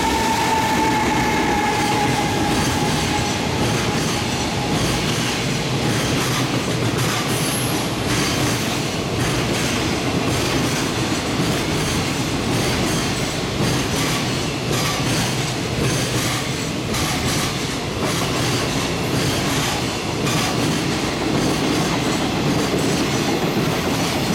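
Electric locomotive hauling a long container freight train through at speed without stopping. A whine falls slightly in pitch over the first few seconds as the locomotive goes by, then comes the steady rumble of the container wagons rolling past with repeated clickety-clack of wheels over rail joints.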